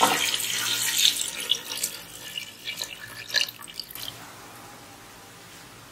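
Water poured from a plastic jug into an aluminium pot of masala, splashing into the liquid. It grows fainter and ends in a few last drips about four seconds in.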